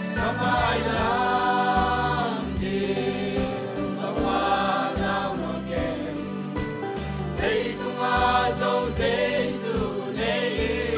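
Mixed choir of men's and women's voices singing a gospel song in phrases of a second or two, over a steady instrumental accompaniment with sustained low notes.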